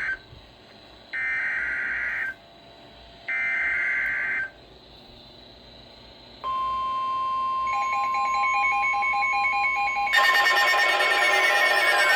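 NOAA Weather Radio emergency alert: the warbling one-second data bursts of the SAME header, sent three times, then the steady 1050 Hz warning alarm tone from about six seconds in. They announce a new severe thunderstorm warning. Pulsing alarm beeps join about a second into the tone, and near the end a louder layer of alarm sounds with falling whistling sweeps comes in.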